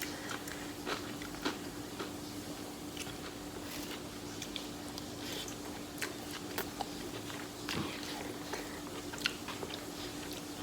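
A person chewing and biting food close to the microphone, eating rice and chow mein, with many short mouth clicks and smacks scattered irregularly throughout.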